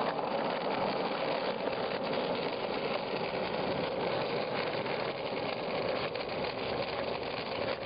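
Skateboard wheels rolling steadily over asphalt: a continuous, even rumble.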